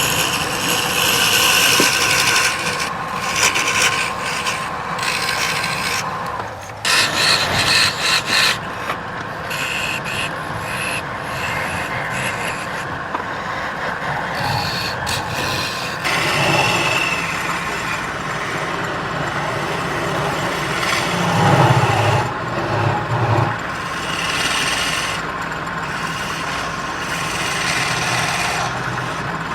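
A turning tool scraping and cutting wood spinning on a lathe: a continuous rasping scrape that shifts in texture as the cut changes, about 7 and 16 seconds in.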